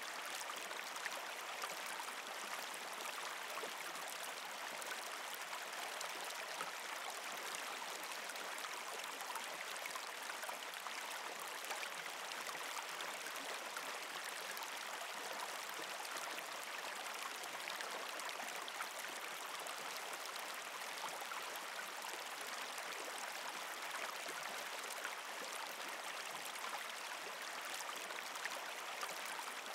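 Steady flowing water, like a gentle stream, with no change over the whole stretch.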